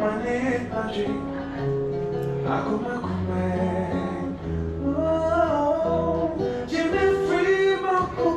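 Guitar playing chords and bass notes under a voice singing held, sliding notes.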